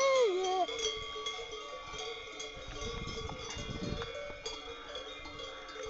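Several cowbells on grazing cows ringing and clanking together without a break, their tones overlapping, with occasional sharper clinks. Right at the start comes a short call that falls in pitch.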